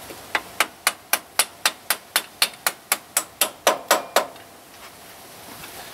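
A hammer striking repeatedly, about sixteen even blows at about four a second, stopping a little after four seconds in.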